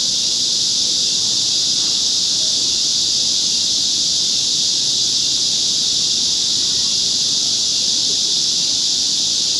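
Cicadas calling in a loud, steady chorus: one high-pitched, unbroken buzz.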